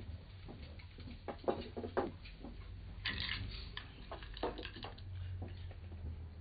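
Quiet room ambience: scattered soft clicks and knocks over a low steady hum, with a brief hiss about three seconds in.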